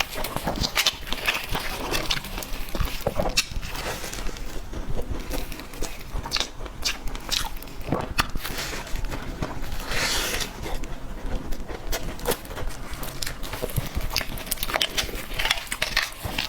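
Close-up eating of cake: a continuous run of short, wet chewing clicks and smacks.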